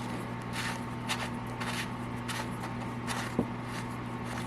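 A few soft, scratchy rustling and handling noises spaced a second or so apart, over a steady low electrical hum.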